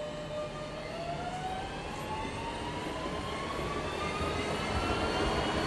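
Class 440 electric multiple unit pulling away and accelerating. Its electric traction drive gives a whine of several tones that starts rising steadily in pitch about a second in, while the train grows louder.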